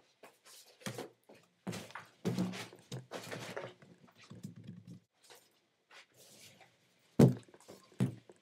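Rubber party balloons being handled close to the laptop's microphone: irregular rubbing, squeaking and brushing of balloons against each other and the laptop, with a sharp thump about seven seconds in, the loudest sound, as a balloon knocks the laptop.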